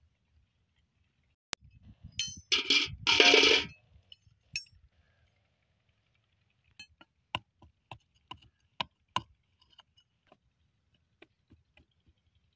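Digging and scraping by hand in dry soil around a buried metal pipe fitting. A loud scraping rush comes about two to four seconds in, then a run of sharp clinks, about three a second, that thin out toward the end.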